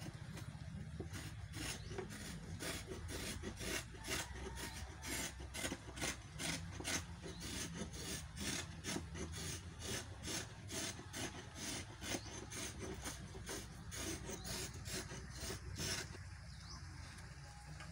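Hand tool rasping and scraping the surface of a carved wooden lechon tray in quick back-and-forth strokes, about two to three a second, stopping about sixteen seconds in.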